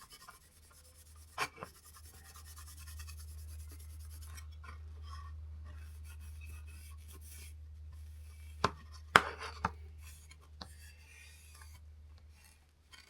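A cloth rubbing Danish oil onto small wooden pieces, a scratchy rubbing, with a few light knocks as the pieces are handled, over a steady low hum.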